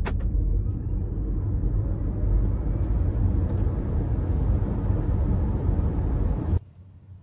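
Cabin of a 2022 Cupra Born electric car accelerating hard from a standstill in sport mode: road and wind noise building with speed, with a faint rising whine from its 150 kW rear electric motor. The sound cuts off suddenly near the end.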